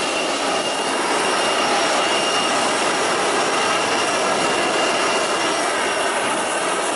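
Jet airliner engines running steadily: a dense, even rush with a thin, high steady whine on top.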